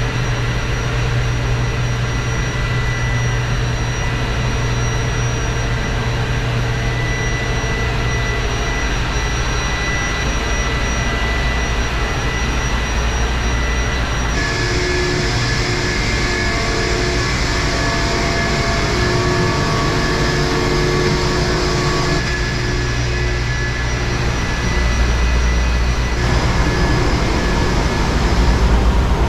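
Loud, steady machinery noise of a cruise ship's engine room: a deep hum with several steady whining tones above it. The mix of tones changes abruptly about halfway through and twice more later, as different machines take over.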